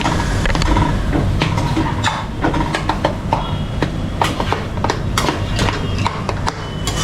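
A cooking utensil knocks and scrapes against a pan as a thick onion-and-tomato mixture is stirred: irregular clacks, several a second, over a low steady hum.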